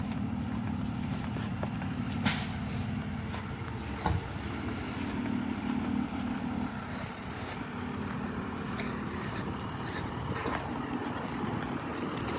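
Delivery truck engine idling with a steady low hum, broken by two sharp knocks about two and four seconds in.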